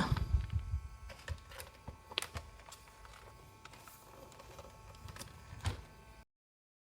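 Faint scattered clicks and knocks of a Lenovo IdeaPad 330 laptop being handled and opened up, over a faint steady hum; the sound cuts off abruptly near the end.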